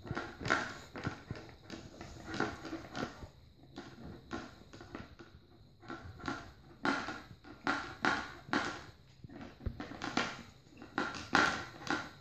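Pug puppy playing with a flat chew on a hardwood floor: a run of short, noisy scuffs and snuffles, about two or three a second, easing off briefly around the middle.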